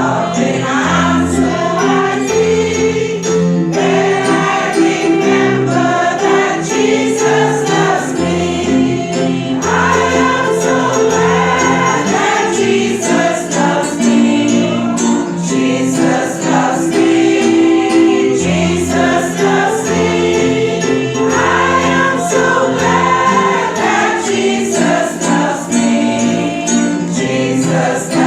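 A group of voices singing a gospel hymn together over an instrumental accompaniment of long held notes, with a steady jingling percussion beat.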